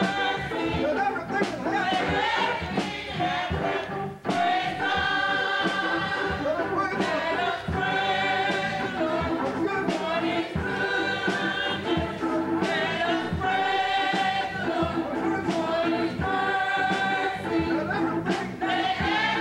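Gospel choir singing, with long held notes.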